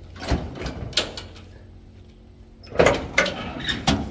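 A series of sharp knocks and clanks over a low steady hum: a few in the first second or so, then a quicker cluster near the end.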